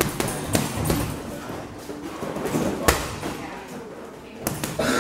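Boxing gloves punching a hanging heavy bag: a run of irregular thuds, the loudest about three seconds in, with two quick hits near the end.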